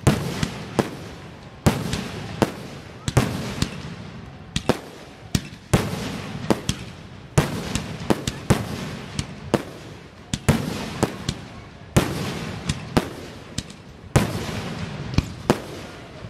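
Aerial firework shells bursting in quick succession: sharp bangs coming more than once a second, each trailing off in a fading echo.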